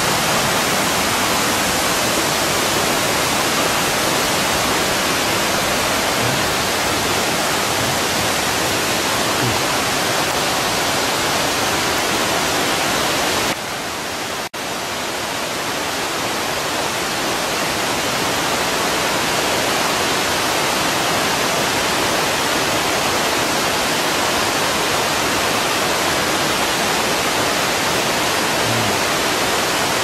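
Waterfall: the loud, steady rush of water falling over rock. The sound drops briefly about halfway through, then returns.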